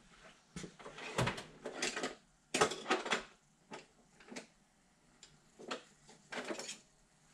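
Tools and metal objects clattering and knocking on a workbench as they are rummaged through, in irregular groups of short knocks with gaps in between.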